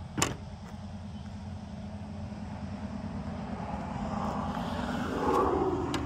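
A single sharp click from the bus's rear emergency door, over a steady low rumble. A rushing noise swells and fades near the end.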